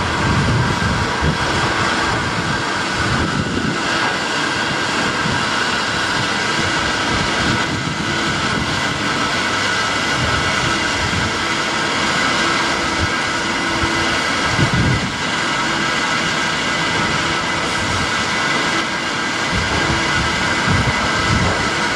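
Steady mechanical noise of a South Western Railway electric multiple unit creeping slowly through a carriage-washing plant, its running gear and the wash machinery together, with a few steady high hums and irregular low rumbles underneath.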